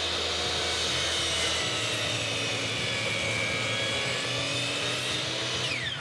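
DeWalt miter saw running at full speed as its blade is lowered through wooden ramp stock. Near the end the motor is switched off and its whine slides down as the blade spins down.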